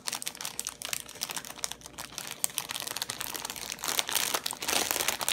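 Clear plastic packaging of diamond painting drills crinkling and crackling as it is handled, with many small irregular clicks; it grows louder about four seconds in.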